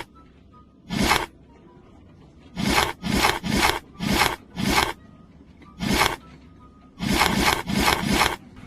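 Repeated rough scraping strokes of a hand tool working a hard surface: about a dozen short strokes in irregular groups, some in quick runs of three or four.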